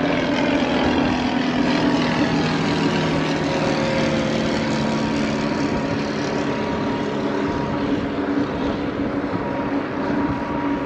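Small propeller aeroplane taking off, its engine giving a steady drone.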